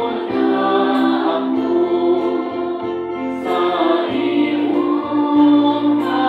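A group of voices singing a slow song with instrumental accompaniment: long held notes over a steady bass line.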